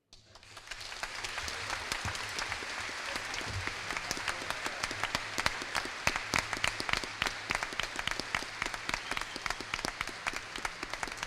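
Audience applauding: many hands clapping, the applause building quickly in the first second and then going on steadily.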